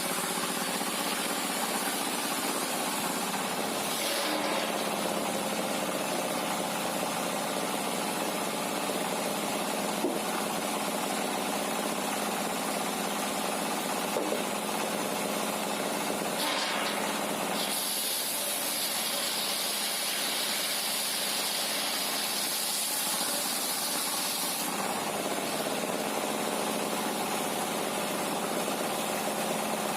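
Sawmill machinery running steadily with an engine-like drone. A higher-pitched whine joins from about 17 to 25 seconds in.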